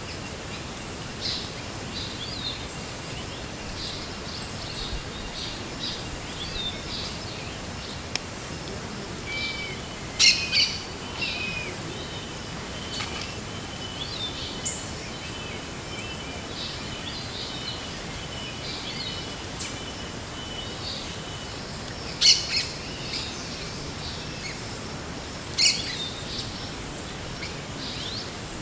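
Forest birds calling and singing over a steady background hiss: many short chirps and trills, with loud sharp calls about a third of the way in and twice near the end. A thin, steady high tone runs through the middle.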